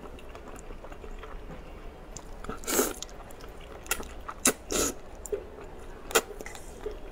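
A person slurping and chewing hot dry noodles in sesame paste, with a longer slurp about three seconds in and another near five seconds, and a few short sharp clicks in between.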